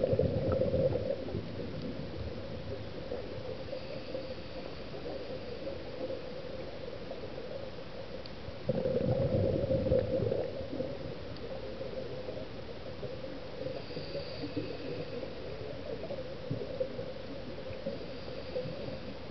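Scuba regulator breathing heard underwater: a burst of exhaled bubbles gurgling at the start and a longer one about nine seconds in, over a steady underwater hum. A faint high hiss comes twice between them.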